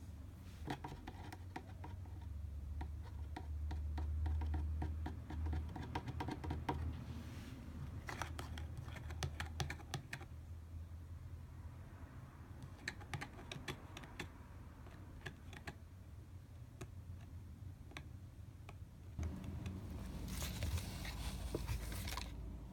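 A cat's claws scratching and tapping on a cardboard box in quick runs of small dry ticks, with a louder rustle of the cardboard near the end.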